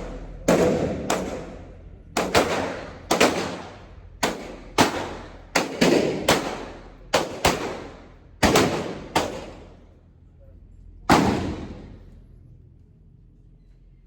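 Glock 19 9 mm pistol firing a string of about sixteen shots at an uneven pace, each shot echoing off the range walls, with the last single shot about eleven seconds in.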